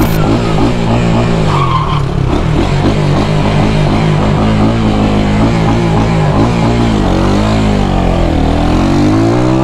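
Missile 250cc motorcycle engine running under way, its pitch wavering, then dipping and climbing steadily near the end as it revs up.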